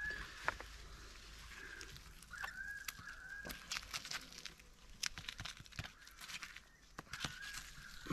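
Soft clicks and rustling of knife work on a red deer carcass, with a thin, high, drawn-out animal call heard three times: at the start, about two and a half seconds in, and near the end.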